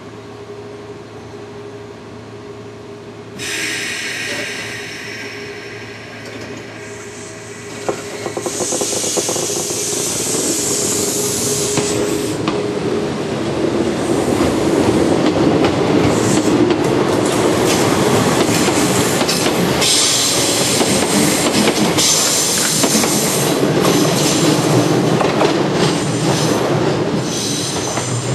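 Kintetsu 26000 series 'Sakura Liner' electric train pulling out of a station. A steady hum gives way to a sudden hiss of air a few seconds in, then the running noise of motors and wheels builds and stays loud as the cars roll past.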